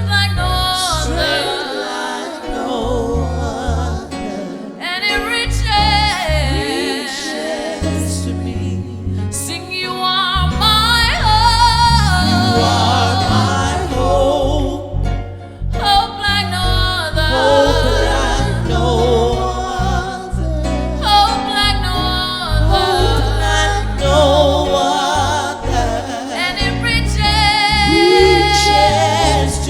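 Gospel song: a singer holding and bending long notes with strong vibrato, over band accompaniment with a steady bass line.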